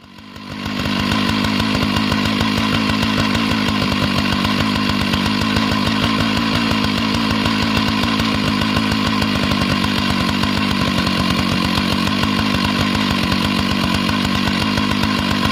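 Husqvarna 2100 chainsaw's two-stroke engine running steadily at high speed, fading in over the first second.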